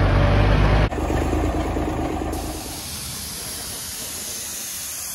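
A truck engine running, cut off sharply about a second in, followed by the steady hiss of a compressed-air paint spray gun spraying from about two seconds in.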